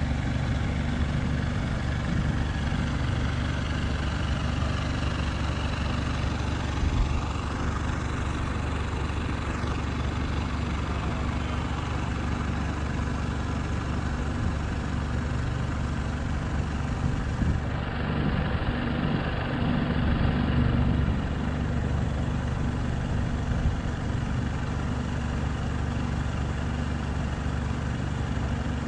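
An engine idling steadily, a low hum with a constant pitch.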